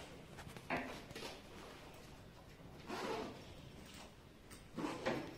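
A black fabric bag being handled and packed: a sharp knock just under a second in, then short rustling scuffs about three seconds in and again near the end.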